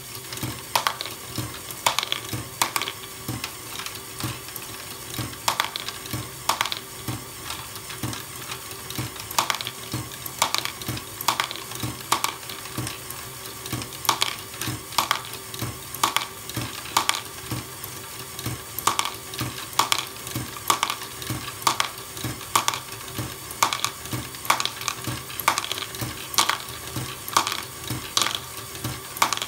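Lego Technic Great Ball Contraption module running: its electric motor and gear train hum steadily while small plastic balls and parts clack, with a sharp click about once a second and lighter ticks between.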